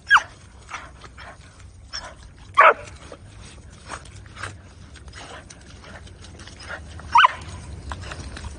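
Dog barking three times, short high barks that drop in pitch, amid the splashing of its feet in muddy water.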